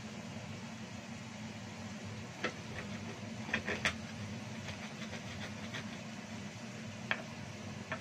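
Stone pestle grinding spice paste in a mortar. Sharp clacks of stone on stone come now and then, with a quick cluster of them a little before halfway. A steady low hum runs underneath.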